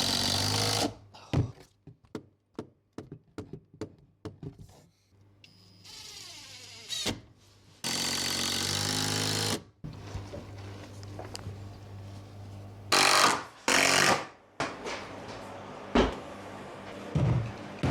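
Power drill-driver running in short bursts, the longest about a second and a half, the way it goes when driving screws. Sharp knocks and taps come in between.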